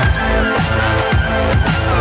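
Background electronic dance music with a steady beat of about two strokes a second, falling bass sweeps and a held melody line.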